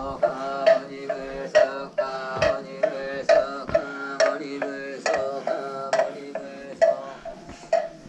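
Buddhist chanting: a voice intoning in a slow, sustained chant, kept in time by a wooden moktak struck steadily about twice a second.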